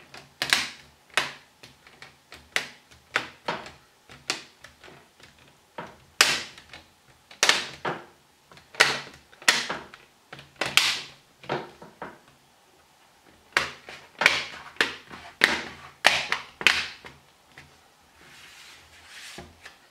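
Plastic clips of a laptop's screen bezel snapping into place one after another as the bezel is pressed back onto the lid: a long run of sharp plastic snaps at irregular intervals, some in quick pairs, stopping near the end.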